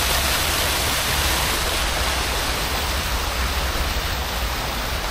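Fountain jets splashing into a stone basin: a steady rush of falling water that grows slightly fainter toward the end, with a low rumble underneath.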